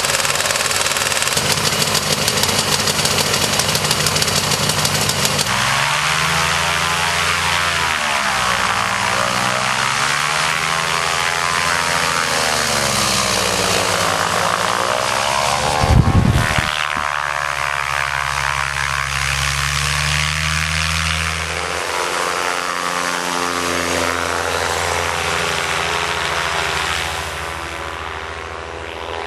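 Microlight trike's propeller engine running close by, its pitch wavering up and down as it moves off across the snow. There is a brief loud thump about halfway through, and the engine sounds fainter near the end as the trike flies off.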